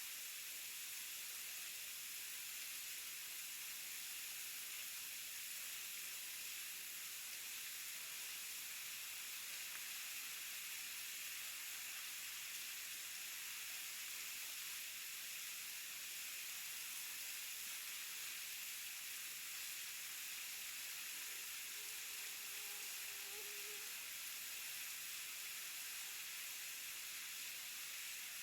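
Waterfall: a steady, unbroken hiss of falling water, with a brief faint tone a little over twenty seconds in.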